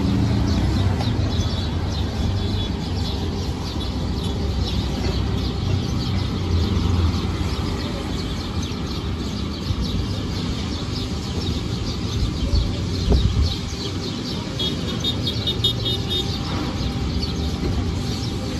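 Outdoor background: small birds chirping over a steady low rumble, with a short run of quick repeated high notes a few seconds from the end and a brief low bump in the middle.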